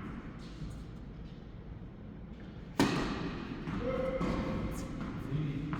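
A tennis ball struck hard by a racket: one sharp hit about three seconds in, with a few softer knocks before and after over a low steady hum.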